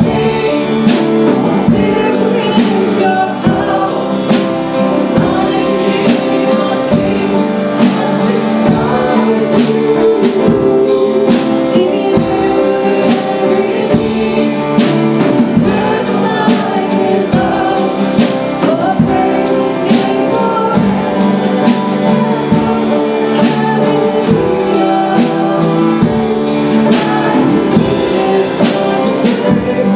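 Worship music with singing, instruments and a steady drum beat.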